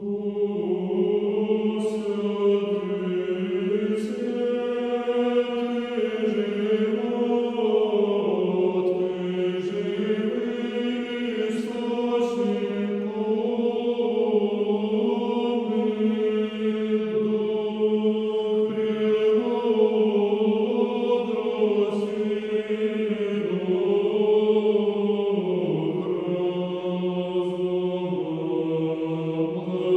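A choir chanting slow, long-held notes in harmony, with the pitch moving only gradually.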